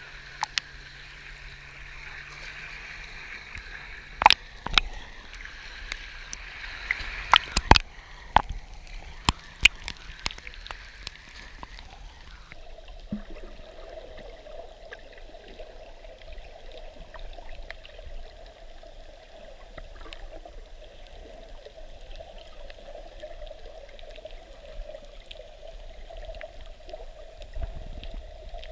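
Sea water splashing and sloshing around a camera held at the surface, with several sharp knocks, then from about twelve seconds in a duller, steady underwater wash with faint clicks as the camera goes below the surface.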